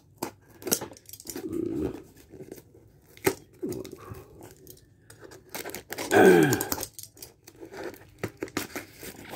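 Hands tearing and crinkling a parcel's brown paper and plastic-tape wrapping, in scattered short rips and crackles. About six seconds in comes the loudest sound, a short pitched screech that falls in pitch.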